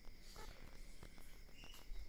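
Faint, irregular small clicks of someone eating rice and fish curry by hand from a steel plate, over a faint steady high-pitched hum.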